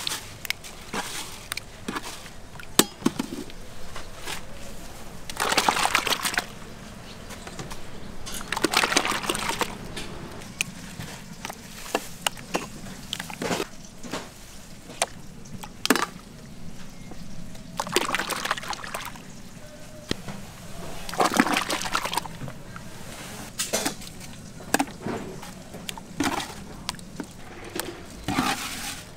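Hot soup broth being ladled and poured into bowls in several splashing pours about a second long, with frequent sharp clinks of ladle and bowls between them.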